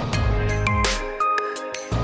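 Electronic background music with a heavy bass line, sustained synth notes and a steady beat.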